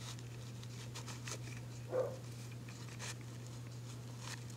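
Faint, scattered light clicks and rustles at a plastic beetle enclosure over a steady low hum, with a brief low murmur about two seconds in.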